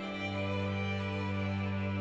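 Background music holding long sustained chords, a new chord coming in at the very start.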